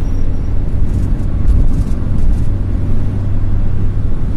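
Steady low rumble of a car being driven at road speed: engine and road noise heard from inside the cabin.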